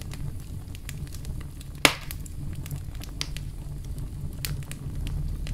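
Knife working through an onion on a cutting board, cutting out the core: irregular light clicks and crackles of the onion layers, with one sharper knock of the blade on the board nearly two seconds in.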